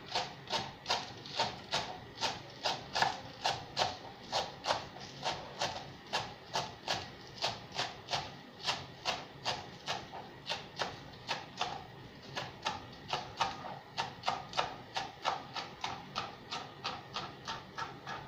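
Kitchen knife chopping spring onions on a plastic cutting board: a steady run of crisp cuts, about two to three a second, a little faster in the last few seconds.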